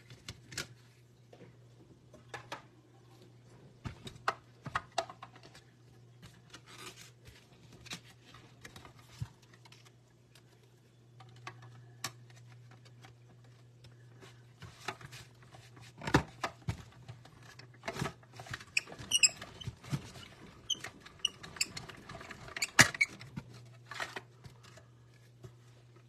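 Clear plastic cutting plates clicking and tapping as they are handled and lined up, then cranked through a hand-cranked die-cutting machine, with a dense run of clicks and a few high squeaks from the plates in the rollers in the second half.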